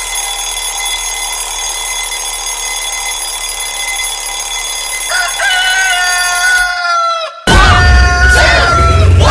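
Alarm tone played back: a steady electronic tone, then a rooster crowing over it from about five seconds in. After a short silent break near seven seconds, a louder rooster crow starts.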